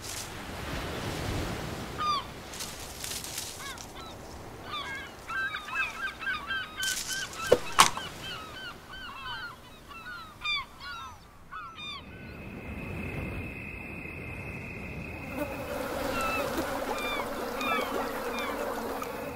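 Beach ambience: many short, falling bird chirps over a wash of surf, with a sharp knock about eight seconds in. From about twelve seconds on a steady high insect drone joins in.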